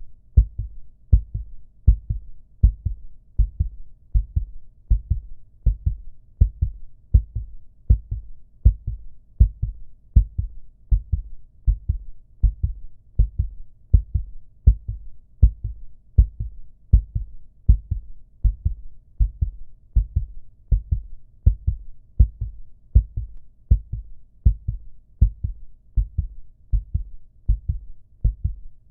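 Heartbeat sound effect: low, dull beats repeating in a steady, even rhythm.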